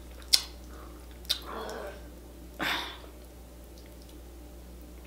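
Close-miked wet eating sounds: a few sharp mouth clicks and smacks, with a longer, louder smack about two and a half seconds in, as a person chews sauce-soaked potatoes.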